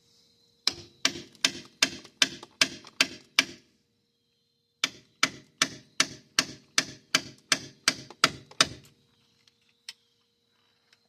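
Hammer striking metal in two runs of even blows, about eight and then about eleven, nearly three a second, each with a short metallic ring. Crickets chirp faintly underneath.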